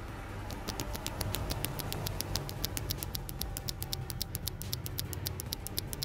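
Purple Outemu switches on a mechanical keyboard with the keycaps off, pressed in a rapid run of sharp clicks, about eight to ten a second, starting about half a second in.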